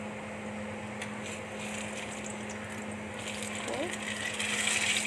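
Egg-dipped bread deep-frying in hot oil: a steady sizzle whose fine crackling grows louder about three seconds in, over a steady low hum.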